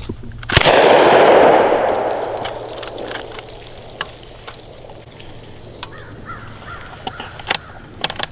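A single 12-gauge shotgun blast from a semi-automatic bullpup shotgun, the DDI LA-K12 Puma, with a long echo dying away over about two seconds, then a few small clicks of handling. The light low-velocity load fails to cycle the action, so no second shot follows.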